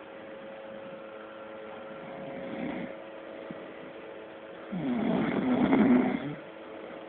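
A man snoring in his sleep: a faint snore about two and a half seconds in, then a loud, longer snore lasting over a second about five seconds in.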